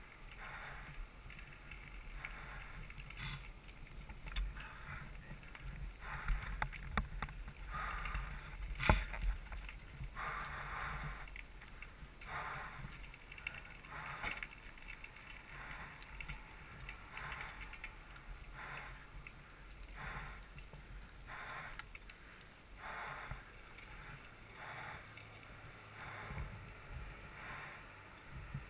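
Mountain bike rolling over a dirt and gravel road: tyres crunching and the bike rattling in uneven bursts over a low rumble, with a sharp knock about nine seconds in.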